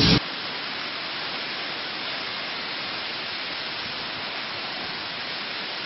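Hurricane-force wind and heavy rain as a steady, even hiss, mostly high in pitch with little low rumble.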